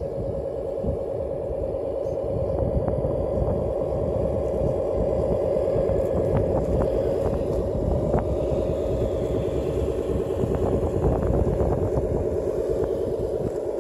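Radio-controlled scale-model dump truck driving over loose dirt and gravel: its drive runs with a steady drone, a little louder from about two seconds in, with scattered small clicks.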